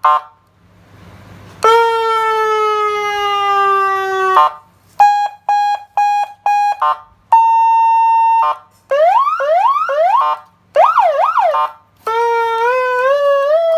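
12 V electronic police siren unit cycling through its tones: a long, slowly falling wail, rapid on-off beeping, a steady tone, quick rising whoops, a fast up-and-down warble, then a wail that climbs in steps. Short chirps come between the tones.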